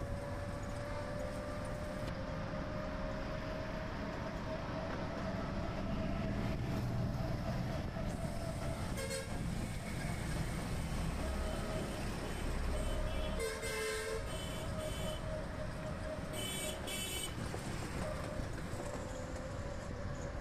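Moving auto-rickshaw in city traffic: a steady engine drone and road noise. Vehicle horns toot several times, with a short blast about nine seconds in and more blasts a little after the middle and again later.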